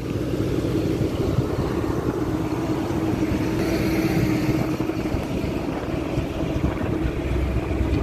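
A fire truck's engine running steadily, a low drone with a constant hum, its rumble growing louder near the end.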